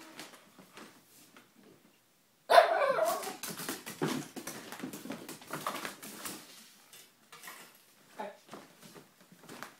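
Italian greyhound barking and yelping excitedly at feeding time, over clicking and clatter. After a quiet start, a sudden loud yelp comes about two and a half seconds in, followed by a run of yips and clatter, and a short whine near the end.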